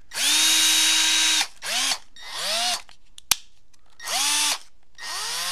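Milwaukee 2407-22 M12 12-volt cordless drill/driver running with no load in five trigger pulls, the motor whine rising in pitch as it spins up and dropping as it coasts down. The first run is the longest and holds a steady speed; the later ones are shorter and some stay at part speed. There is a single sharp click a little past the middle.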